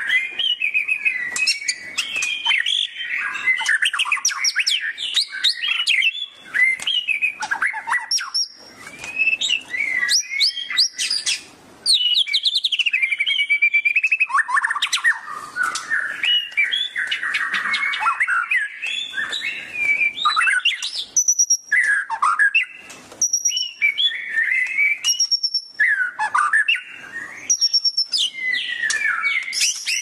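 White-rumped shama (murai batu) singing continuously: a rapid, varied run of whistles, glides and trills, broken by short pauses. In the second half it repeats short high notes about once a second.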